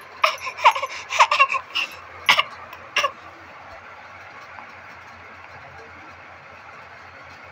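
A young pigeon squab squeaking, a quick run of short, high cries in the first three seconds, then stopping.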